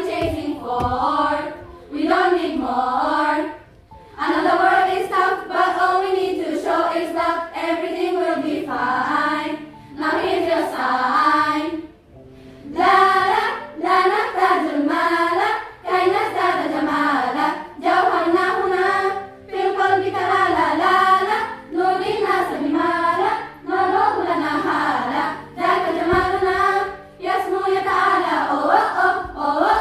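A girls' choir singing together in phrases, with short pauses for breath between them, the longest about four seconds in and again about twelve seconds in.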